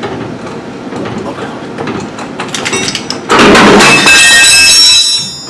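Metal suspension parts being handled as a front spindle is fitted to the ball joints. A little over three seconds in, a loud harsh hiss with several high ringing tones starts, lasts about two seconds and fades.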